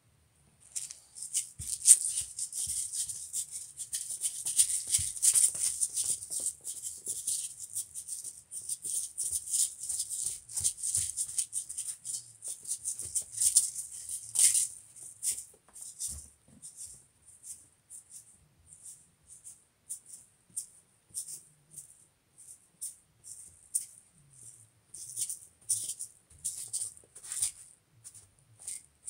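A shaker rattling in rhythm, busy and dense at first, then settling about halfway through into a steady pulse of a little under two shakes a second.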